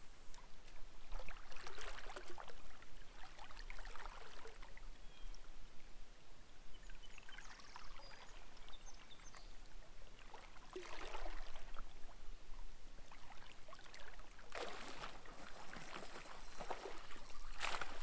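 River water sloshing and splashing around a wading angler's legs and a kayak, in irregular swishes every few seconds, each about a second long.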